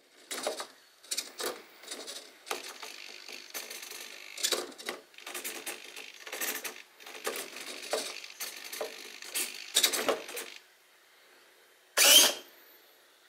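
Redcat SixtyFour RC lowrider's servo-driven suspension whirring and clattering in a quick run of short bursts as the car bounces and lifts its front end, then, after a brief pause, one louder clack about twelve seconds in.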